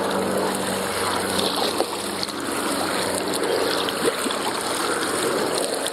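Steady splashing and trickling of water around a kayak being paddled: paddle blades dipping and dripping, and water washing past the hull.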